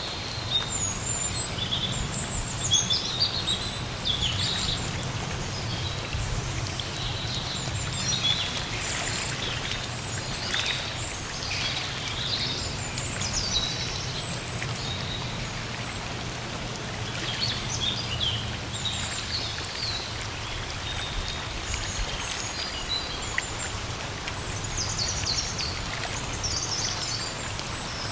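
Steady rain in a forest with many birds chirping in short, repeated calls. A low rumble sits underneath and fades about two-thirds of the way through.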